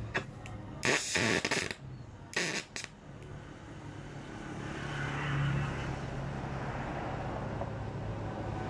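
An engine or motor running, its sound swelling over a couple of seconds and then holding steady, after two short noisy bursts near the start.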